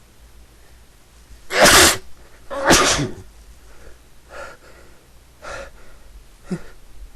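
A person's sneezes in a sneezing fit: two loud sneezes about a second apart, then three quieter breaths.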